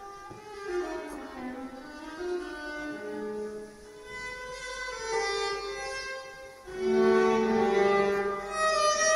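Violin playing a slow melody of long held, bowed notes, growing louder about seven seconds in.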